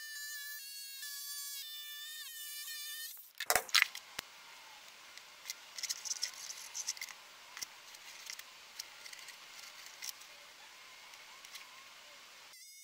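Electric jigsaw motor running with a steady high whine for about three seconds, cut off by a sharp clack. Then faint scratching and light ticks of a pencil marking out circles on plywood.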